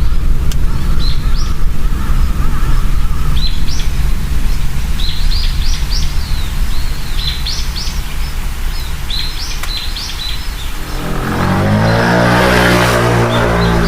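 Small birds chirping repeatedly over a steady low rumble. About eleven seconds in, a loud, rough, low pitched sound swells up and holds.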